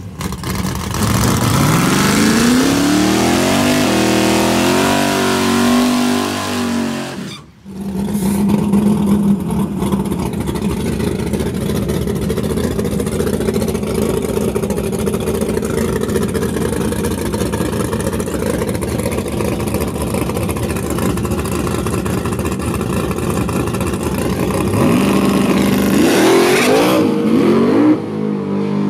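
Nitrous LS small-block V8 of a Chevrolet Monte Carlo G-body drag car, revving hard with climbing pitch for several seconds, then idling loudly and steadily on the line. Near the end the revs climb quickly as it launches.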